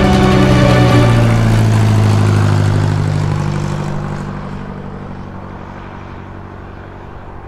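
Propeller-plane engine sound effect passing by: a loud, droning engine note that drops a little in pitch as it passes, then fades away over the last few seconds.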